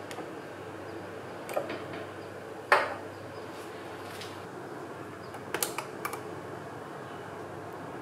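Small hard clicks and knocks of the frothing attachment being worked off the steam wand of a De'Longhi espresso machine: a couple of light clicks, one sharp click a little under three seconds in, then a quick cluster of clicks about halfway through, over a steady low hiss.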